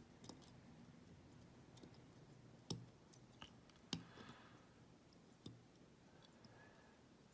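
Faint, scattered metallic clicks of a pick wire and tension tool working the levers inside a small vintage Chubb lever padlock, with three sharper clicks in the middle.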